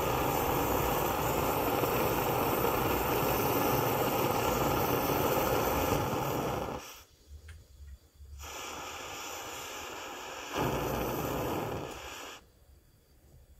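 Barthel petrol camping stove's pressurised burner running with a steady rushing sound, then being shut off with its valve key. It cuts out abruptly about seven seconds in, comes back weaker, flares louder briefly, and dies out near the end.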